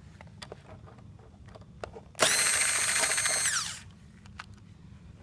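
Electric screwdriver running for about a second and a half to drive out a screw, its motor whine dropping away as the trigger is let go. Faint clicks of parts being handled before and after.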